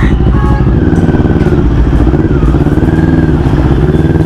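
Motorcycle engine running at low revs in slow traffic, its pitch wavering slightly up and down.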